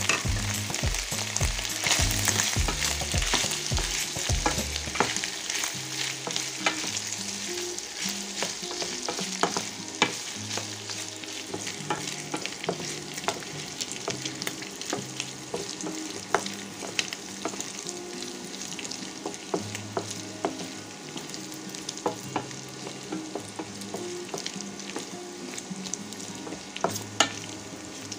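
Chopped boiled chicken gizzards sizzling in hot oil in a stainless steel pan, loudest in the first few seconds after they go in and settling to a steadier sizzle. A wooden spatula stirs them, with sharp taps and scrapes against the pan now and then.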